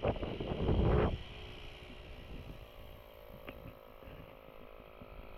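Wind buffeting the microphone for about the first second, then a small cordless tyre inflator running with a faint steady hum as it airs a tyre back up after off-roading.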